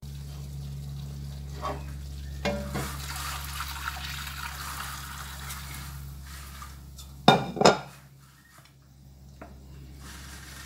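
Hot water poured into a wok of frying mee siam chilli paste, hissing and splashing, over a steady low hum. Two loud clanks come about seven seconds in, then a wooden spatula stirs the thinned broth in the wok.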